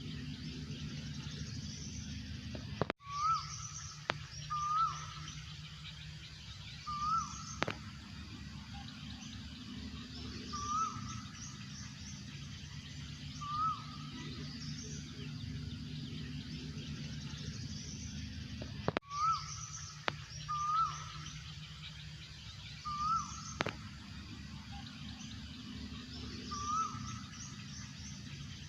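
Asian koel calling: short hooked notes, repeated every couple of seconds in runs, over a steady low hum, with other small birds chirping higher up.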